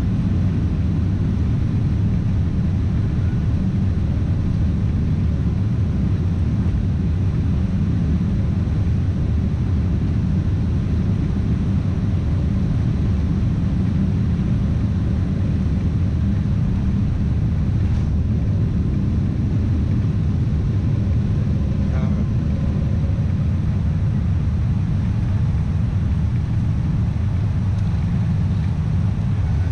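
Boeing 747 on its takeoff roll, heard from inside the cabin: the engines at takeoff power and the wheels on the runway make a loud, steady low rumble as the jet accelerates to lift-off.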